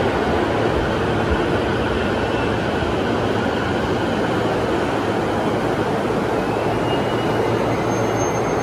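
Electric commuter train rolling slowly into a station platform and coming to a stop: a steady rumble of wheels and running gear, with a faint whine coming in near the end.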